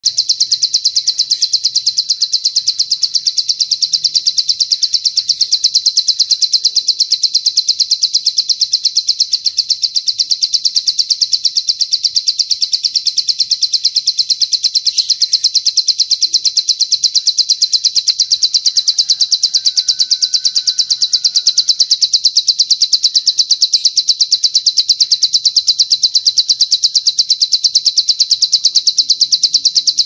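A cililin's long, unbroken high-pitched trill made of very rapid repeated notes, played as a continuous bird-song tutor track ('masteran cililin panjang') for teaching plain prinias (ciblek sawah) to copy it.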